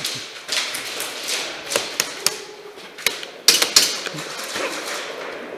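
Airsoft guns firing, a string of irregular sharp clacks and cracks, some close together and others a second or more apart, with a cluster of louder ones about three and a half seconds in.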